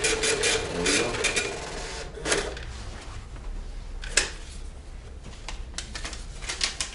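Epson TM-U220B impact dot-matrix receipt printer printing a test ticket, a fast buzzing chatter of print-head strokes that stops about one and a half seconds in. A louder clack comes just over two seconds in, then a few separate lighter clicks.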